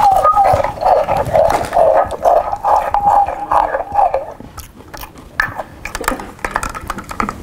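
Loud chewing and crunching of a snack amplified through a handheld megaphone, coming out tinny and crackly. It stops about four seconds in, leaving quieter scattered clicks and rustles.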